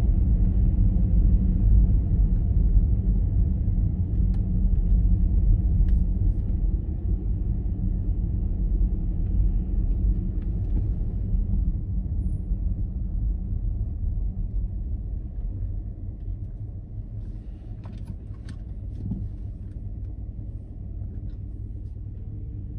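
Low rumble of a car's engine and tyres heard from inside the cabin while driving, growing gradually quieter over the last several seconds as the car slows toward a red light.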